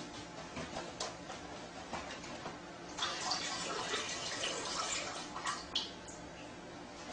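A dog squatting on a toilet seat, urinating into the bowl: a stream of liquid splashes into the toilet water, starting about three seconds in and lasting about three seconds. A few light taps come before it, as its claws shift on the seat.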